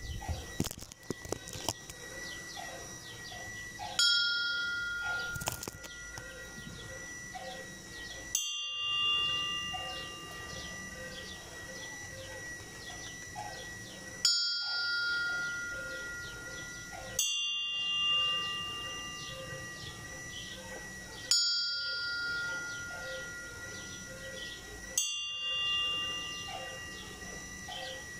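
Church bells tolling a death knell (toque de difunto): six single strikes, spaced about 3 to 6 seconds apart, each left to ring out and fade. The strikes come from bells of two slightly different pitches. A few loose knocks sound in the first couple of seconds.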